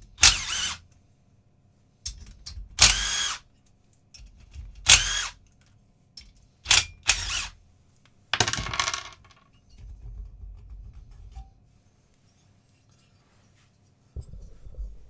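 Cylinder head being taken off a Suzuki PV50 two-stroke engine: five short, loud bursts of metallic tool noise about two seconds apart, then quieter clatter of parts being handled.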